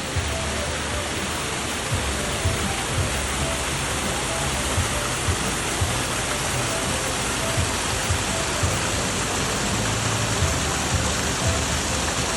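Steady rush of water at close range, with faint background music underneath.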